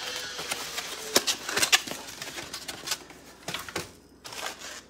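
A few scattered light knocks and clicks of kitchen things being handled and set down by a stove, among them a plastic egg carton, most of them in the first two seconds.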